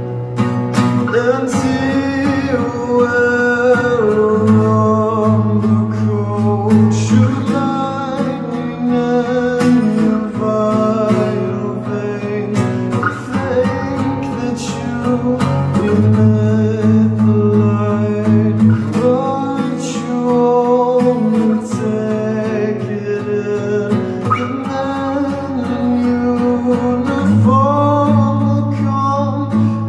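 Acoustic guitar played in steady chords, with a voice singing along in long held notes.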